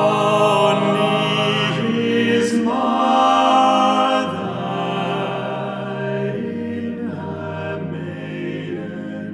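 A six-voice male a cappella ensemble singing slow, held chords that change every couple of seconds, growing softer after about four seconds.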